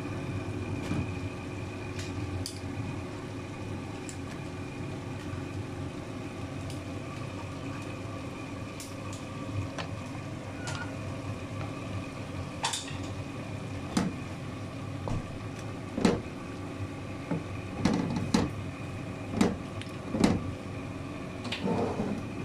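A low steady hum under a stir-fry in a wok; from about halfway, a wooden spatula scrapes and knocks against the wok every second or two as the beef, capsicum and onion are stirred.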